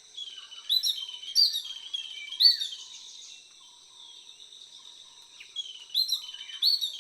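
Yellow-billed babbler calling: short, sharp notes that rise and fall, given in two bouts of a few calls each with a pause of about three seconds between.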